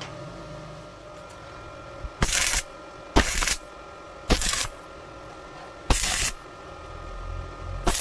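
Electric arc welder striking a series of short tack welds: about five brief crackling hisses, each lasting about a third of a second, over the steady hum of the welding machine.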